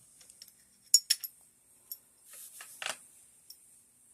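Steel parts of an AK-47's bolt and bolt carrier clicking and clinking as they are handled and fitted together. A quick cluster of sharp metallic clicks comes about a second in, and a brief rustle of handling ends in another click near three seconds.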